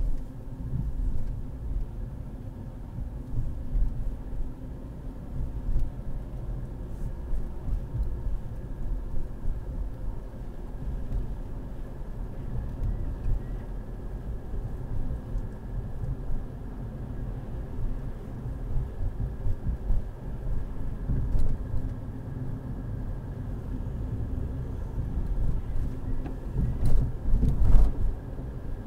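Low, steady rumble of a car's tyres and engine heard from inside the cabin while driving on wet city streets, with a louder thump near the end.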